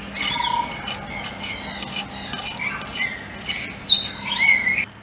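Birds calling with short sliding whistles, the loudest near the end, over the repeated scrape and click of a knife blade shaving the skin off a raw yam.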